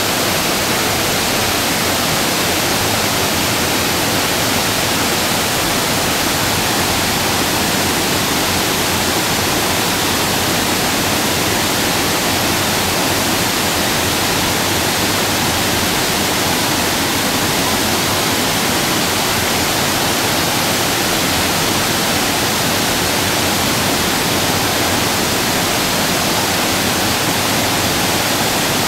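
Havasu Falls and the travertine cascades below it pouring into the pools: a loud, steady rush of falling water.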